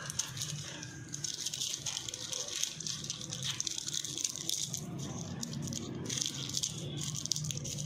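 Butter paper (baking parchment) crinkling and rustling as a piece of toffee is wrapped in it and the paper ends are twisted shut, a continuous fine crackle.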